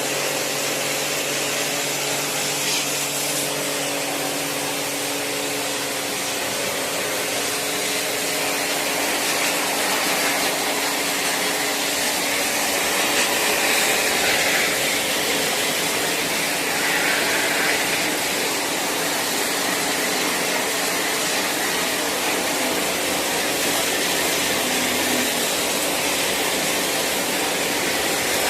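High-pressure washer pump running steadily, its water jet hissing as it sprays through the split air conditioner's coil and fins. The motor's hum is plain in the first few seconds, and after that the spray hiss covers it.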